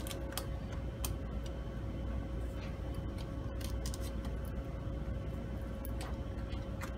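Sparse light clicks and scrapes of small screws being worked out of a laptop's bottom cover with a small screwdriver and fingers, over a steady faint hum.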